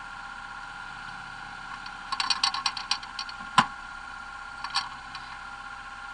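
Racing buggies passing on a dirt track: a steady high engine hum with a rapid cluster of sharp cracks about two seconds in, one loud crack at about three and a half seconds and a smaller one near five seconds.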